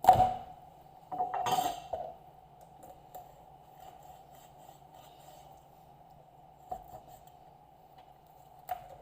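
Kitchenware knocking and clinking: a loud knock at the start, a clatter of dishes or utensils about a second in, then a couple of light clicks.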